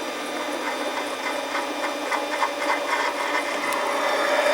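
Harbor Freight 7x10 mini lathe running and taking a light cut, about seven thousandths of an inch, off an aluminum tube. It makes a steady motor and gear hum with a faint, regular ticking, growing a little louder toward the end.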